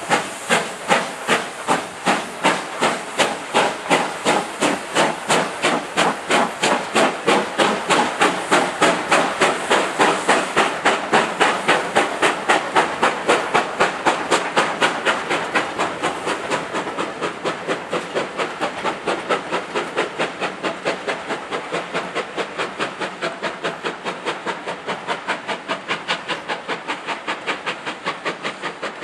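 Steam locomotive pulling a passenger train away, its exhaust chuffs coming evenly and gradually quickening, then fading near the end as the train draws off.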